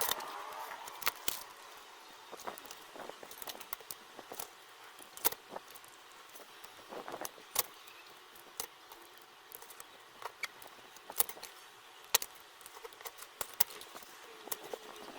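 Irregular light clicks and taps of small metal tools and parts being handled, a dozen or so scattered sharp ticks with quiet between them.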